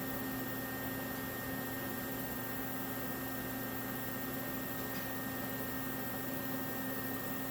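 A steady hum with hiss: a constant low tone and a fainter high whine, unchanging throughout.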